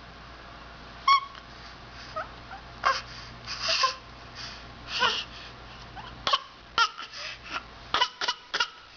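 Young child's short, high-pitched vocal sounds, then a quick run of short, sharp bursts over the last three seconds: put-on fake coughs.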